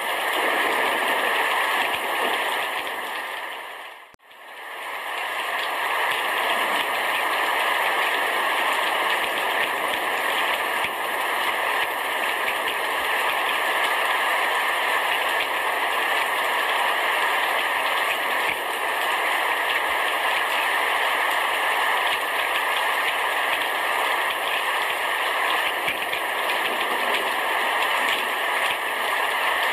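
Heavy rain shower falling on a roof: a steady dense hiss of countless drops. About four seconds in it fades almost to silence for a moment and swells straight back.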